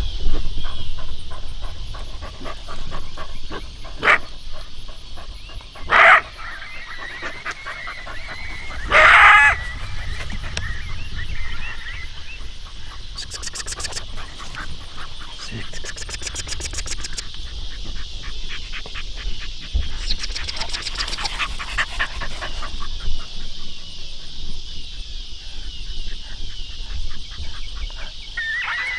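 A few short, sharp canine barks and yelps, the loudest about six and nine seconds in, over a steady high insect drone.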